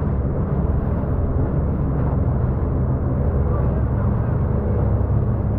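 Jet ski running steadily at speed over choppy water: a constant engine drone mixed with the rush of wind and spray off the hull.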